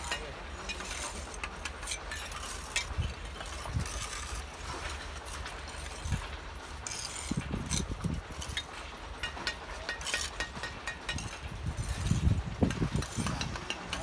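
Bricklaying: steel trowels scraping mortar and tapping bricks into place, with bricks knocking and clinking together in irregular sharp clicks.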